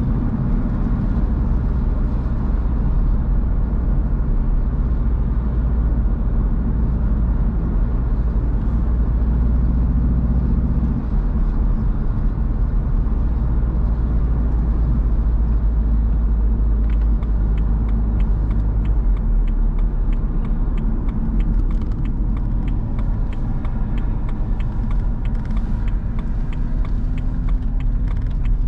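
A BMW roadster on the move: engine running at a steady pitch over a deep road rumble. The rumble lightens about nineteen seconds in, and a run of light clicks joins it from about seventeen seconds on.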